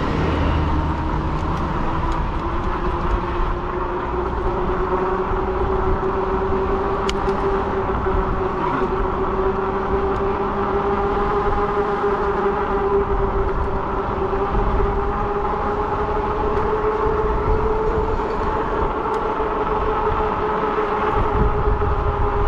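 Fat-tire e-bike under way: a steady whine from its drive and tyres that rises a little in pitch over the first several seconds, then holds, over a low rumble.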